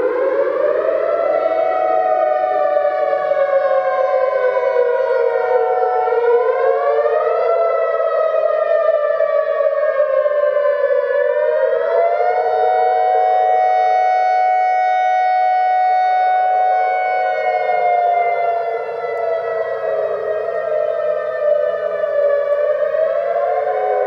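Several outdoor warning sirens sounding at once, among them an Alertronic and a Vortex. Their tones climb right at the start, then rise and fall slowly, each out of step with the others, so the pitches cross and overlap.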